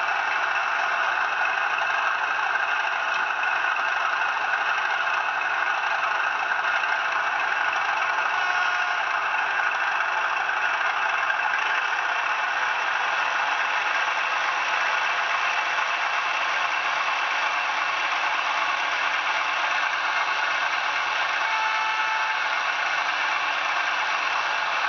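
ESU LokSound decoder in a Hornby Class 31 model locomotive playing a Class 31 diesel engine sound through its small onboard speaker, running steadily. The sound is thin, with little deep bass.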